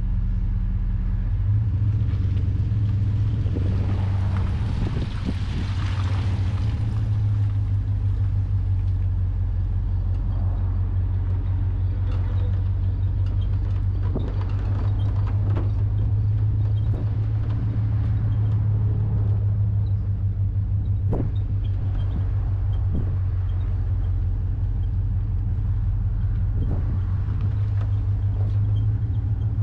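Loaded pickup truck's engine running steadily at low speed as it creeps through a dirt scrap yard, with scattered knocks and rattles from the scrap metal in the bed. A brief rush of hiss about four to six seconds in.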